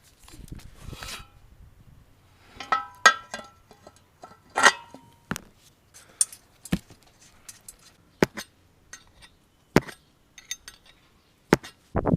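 Metal tools and motorcycle parts clinking and knocking in a string of separate sharp hits, some ringing briefly.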